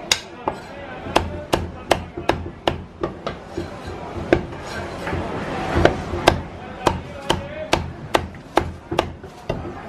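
Cleaver chopping roast duck on a wooden chopping block: sharp, even strokes about two to three a second.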